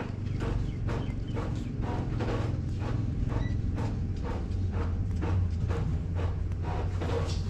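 A quick, fairly even run of light taps or clicks, several a second, over a steady low hum.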